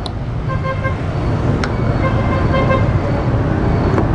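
Road traffic rumbling past, growing louder, with a vehicle horn beeping in two short spells and a couple of sharp clicks.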